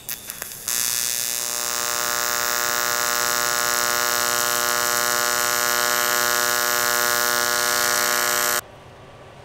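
AC TIG welding arc on cast aluminum: a few quick crackling clicks as the arc strikes, then a loud, steady electric buzz with a hiss while a test bead is laid, cutting off sharply near the end.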